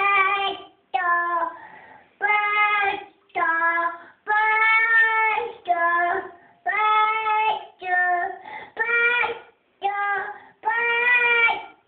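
A high voice singing a simple tune in short held notes, each about half a second to a second long, with brief breaks between them.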